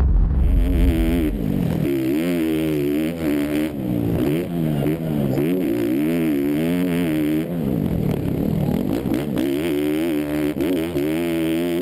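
Onboard sound of a motocross bike's engine at racing speed, its pitch rising and falling again and again as the rider works the throttle and shifts gears.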